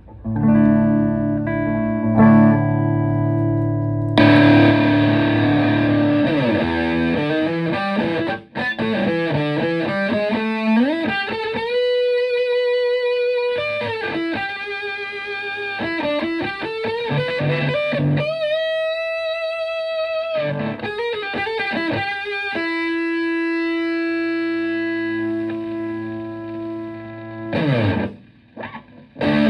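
Epiphone Les Paul electric guitar played through a Tone Bender MKI-style fuzz pedal into a Fender Twin Reverb clone amp. It opens with fuzzy, distorted chords, then moves to sliding and bent single notes with long sustain, and ends with a falling slide near the end.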